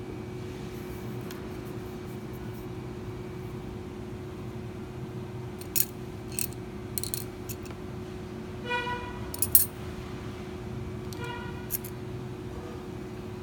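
Small, sharp metallic clicks of a steel safety pin's wire being handled and flexed in the fingers, scattered over the second half, the loudest a quick double click about two-thirds through. Two brief pitched tones sound in between.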